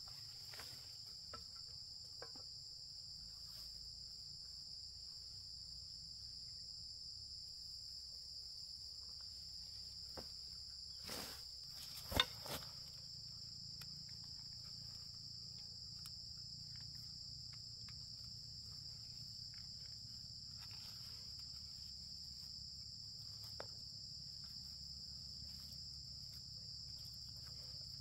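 Steady high-pitched insect chorus, with a few short knocks a little past ten seconds in, the loudest about twelve seconds in.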